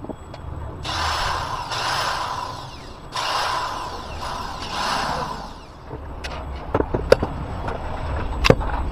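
Hand work on an angle grinder's parts: four rasping strokes of about a second each, then a run of sharp metallic clicks and taps.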